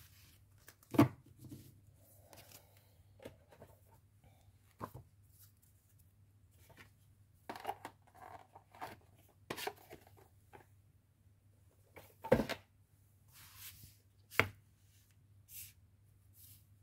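Oracle cards handled on a tabletop: sharp taps as the deck, a book and the cards are set down and moved, with soft sliding and rustling in between. The loudest knocks come about a second in and twice near the end.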